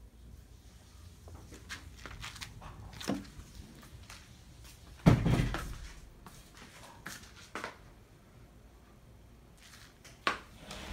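Scattered light knocks and clicks in a small room, with one heavy thump about five seconds in and a sharp knock near the end.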